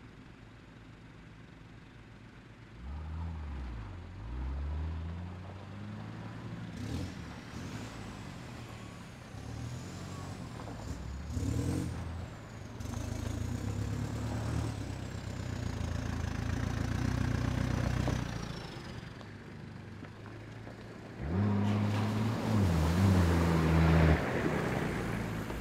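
Off-road 4x4's engine revving and pulling on a trail, its pitch rising and falling again and again, with a harder, louder rev near the end.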